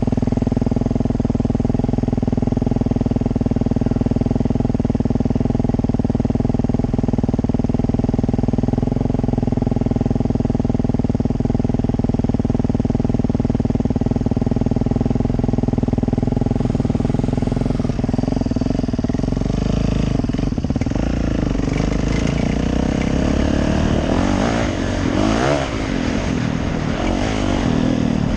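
Yamaha YZ450F four-stroke single-cylinder dirt bike engine idling steadily, then, after about eighteen seconds, revving up as the bike pulls away, its note rising and falling as it rides off.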